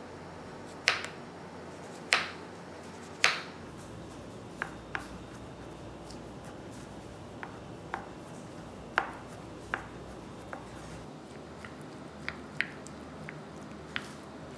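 Kitchen knife cutting a Korean zucchini on a bamboo cutting board: three sharp knocks about a second apart as slices go through onto the board, then lighter, irregular taps of the blade as it is diced.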